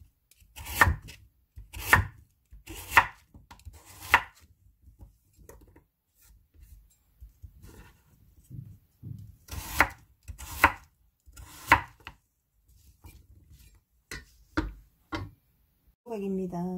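Chef's knife slicing Korean radish on a thick wooden cutting board: firm strikes of the blade through the radish onto the wood, about one a second in two runs, with lighter taps between them.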